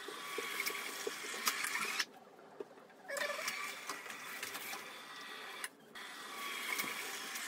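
Tubular roller-shutter motor (10 Nm) running and winding the shutter slats up and down, with a steady mechanical run and the slats rattling. It stops for about a second around two seconds in and again briefly near six seconds. This is a first test run of the newly installed motor on temporary wiring.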